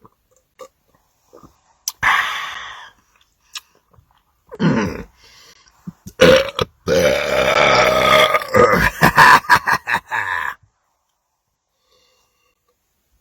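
A man belching after drinking carbonated soda: two shorter burps, then one long, loud belch lasting about four seconds.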